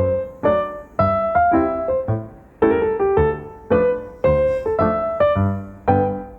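Background piano music: a calm melody of notes and broken chords struck about twice a second, each ringing and fading.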